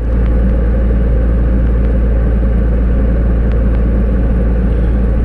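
A car driving along a road, heard from inside its cabin: a steady, loud low rumble of engine and road noise.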